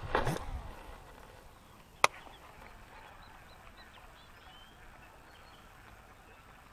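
A baitcasting reel's spool whirring as a cast is made, the whir falling in pitch as the spool slows. A single sharp click follows about two seconds in.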